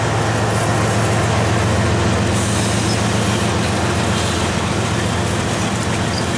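Steel wheels of a freight train's loaded centerbeam flatcars rolling past on the rails, a loud, steady rumble.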